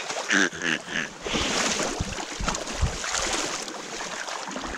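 Creek water sloshing and splashing around legs and boots as someone wades through it, in irregular steps, with wind on the microphone. A short voice sounds near the start.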